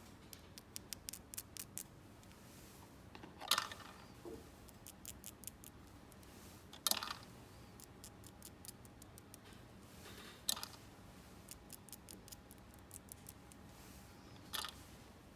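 Small plastic toy pieces being handled, making runs of quick, light clicks and taps, with four louder clacks a few seconds apart.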